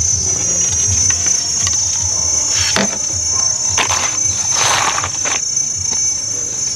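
Insects chirring steadily at a high, even pitch, with a few short rustles and steps as a person moves through garden netting and plants; the longest rustle comes about two-thirds of the way through.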